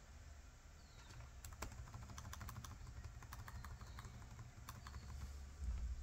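Keys being tapped on a Lenovo Ideapad 100S laptop keyboard. There is an irregular run of light clicks from about a second and a half in until near the end.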